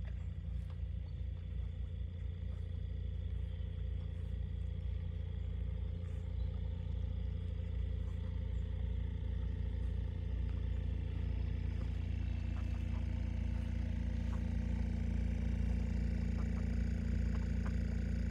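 Steady low rumble of distant traffic with a faint hum, growing slightly louder over the last few seconds.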